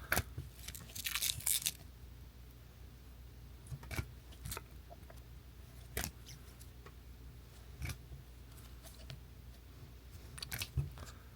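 Trading cards being handled and flipped through by hand: faint sharp clicks and snaps of card stock, a quick flurry near the start, then single clicks every two seconds or so.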